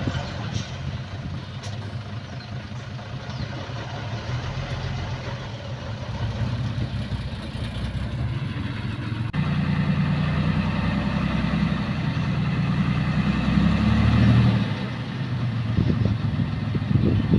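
Heavy diesel engine of earthmoving machinery running steadily with a low drone. About nine seconds in the sound changes abruptly and the engine becomes louder, swelling briefly near fourteen seconds before easing off.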